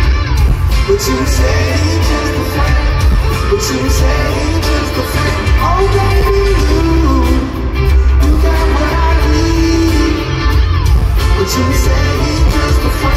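Live concert music: a male singer sings into a handheld microphone over a loud band with heavy bass.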